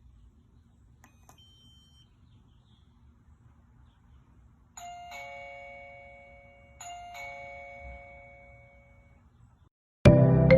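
Wireless doorbell chime sounding a two-note ding-dong twice, about two seconds apart, each note ringing out and fading. A few faint short electronic beeps come before it.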